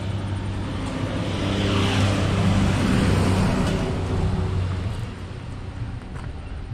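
A motor vehicle passing on the road, its engine growing louder to a peak about three seconds in and then fading away.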